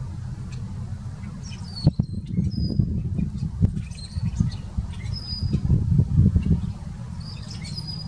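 Rusty blackbird giving a series of short, high squeaky notes, some sliding down in pitch. Under them a low rumbling noise, louder than the bird, comes in with a sharp knock about two seconds in and fades near the end.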